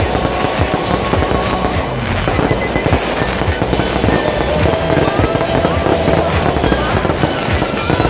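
A fireworks display with aerial shells bursting in a continuous, rapid barrage of cracks and pops.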